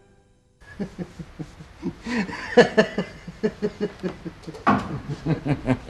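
A man laughing in a long run of short, rapid chuckles, starting about half a second in, just after the tail of music fades out.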